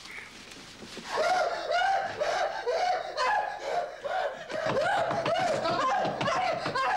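High-pitched cackling laughter: one voice laughing in quick repeated bursts, about three a second, starting about a second in.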